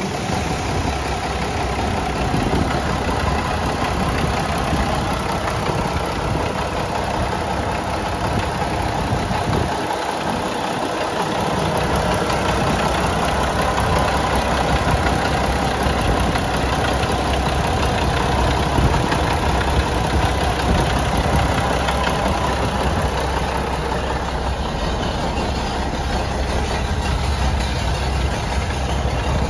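Diesel engine of a 2000 Mack CH613 dump truck idling steadily with the hood open.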